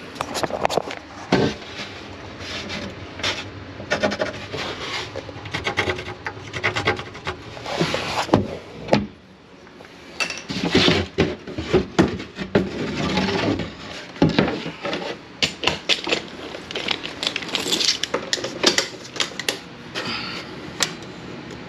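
Irregular knocks, clatter and rubbing of wood and hand tools being handled during kitchen cabinet repair work, with a brief quieter lull about nine seconds in.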